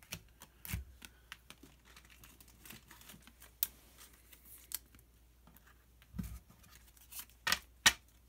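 Pokémon trading cards being handled: scattered light clicks and rustles as cards are shuffled and set down, a soft thump about six seconds in, and two sharper card snaps near the end.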